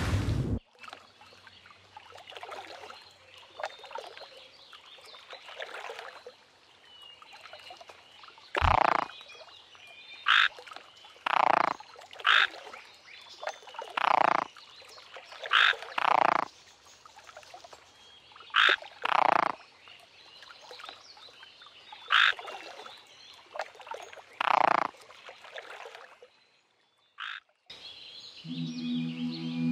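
Animal calls: about a dozen short, loud calls at irregular intervals, over a fainter background of similar calls.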